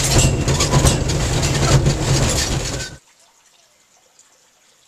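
Electric rack-railway carriage running uphill, heard from inside: a steady low hum under dense clattering and rattling, which cuts off abruptly about three seconds in.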